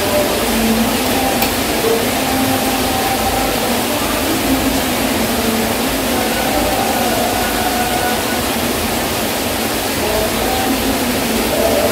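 Heavy rain falling, a loud, steady, even hiss.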